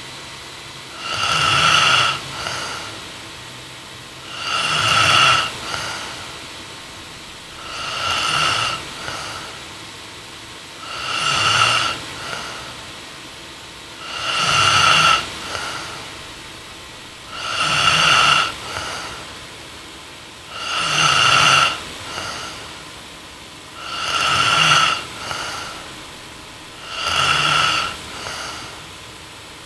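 A young woman snoring in her sleep, steady and regular, one snore about every three seconds. Each snore swells and then stops short, with a smaller sound just after it.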